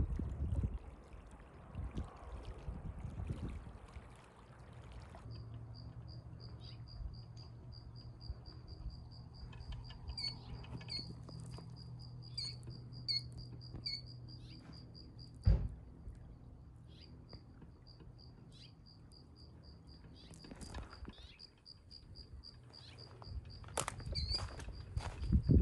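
A high, evenly pulsed chirping at one steady pitch, an insect trilling, starts about five seconds in and runs on. A low steady hum lies underneath for much of it. A single heavy thump comes past the middle, and crunching footsteps on twigs and mud come near the end.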